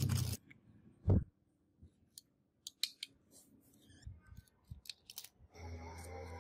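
Plastic scale-model parts handled on a wooden tabletop: a brief clatter at the start, then one sharp knock about a second in as the model's body shell is set down. Light clicks follow as a small metal screwdriver taps and pries at the plastic chassis, and a faint steady hum starts near the end.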